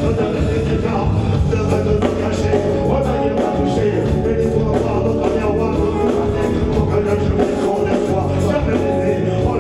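Live reggae band playing: drum kit, electric guitar and keyboard over a heavy, steady beat, with a singer's voice on the microphone.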